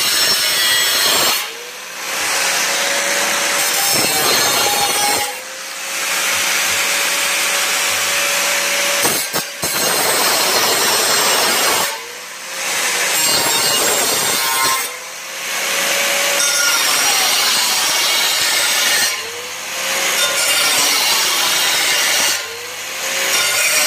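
Electric angle grinder grinding down weld beads on a sheet-steel patch panel, in passes of a few seconds each. Between passes the disc briefly comes off the metal and the motor's whine climbs back up in pitch.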